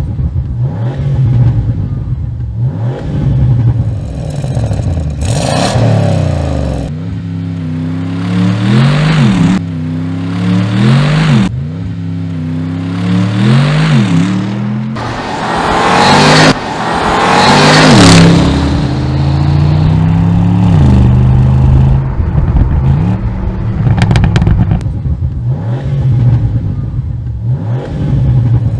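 Bentley V8 S's twin-turbo 4.0-litre V8 and exhaust under hard acceleration. The revs climb and drop back with each upshift, again and again.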